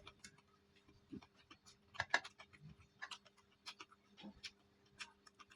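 Close-up chewing of a mouthful of food with crispy fried anchovies and petai: irregular wet mouth clicks and small crunches. A faint steady hum lies underneath.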